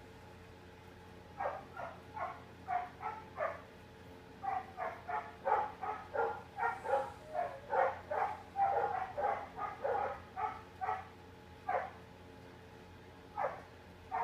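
A dog giving a run of short, high barks, two or three a second. They begin about a second and a half in, stop briefly near the end, and then start again.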